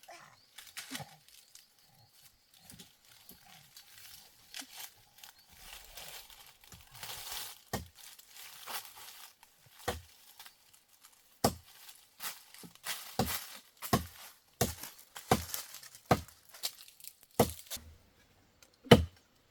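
Leaves and branches rustling, then someone chopping into a tree with a blade: about a dozen sharp chops, a few seconds apart at first, then coming roughly twice a second.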